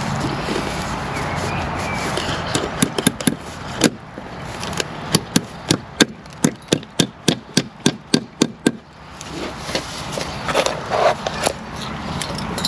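Brick hammer driving a small cut nail through a cavity-tray membrane into the wall: a brief run of light taps, then a steady series of blows at about four a second for three or four seconds.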